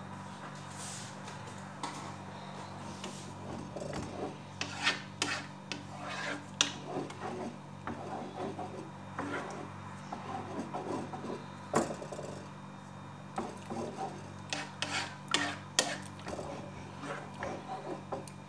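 Wooden spoon scraping and rubbing against the bottom and sides of a cooking pot as yogurt is stirred while it heats toward a boil. The irregular strokes start about two seconds in, over a steady low hum.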